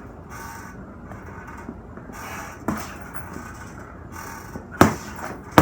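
Punches landing on a heavy punching bag: a lighter blow a little after halfway, then two harder thuds near the end.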